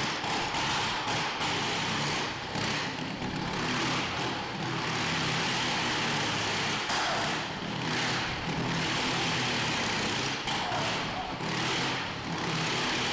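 Motorcycle engine running hard as the bike laps the vertical wall of a Wall of Death drum, the sound swelling and fading about every two seconds as it sweeps past on each lap.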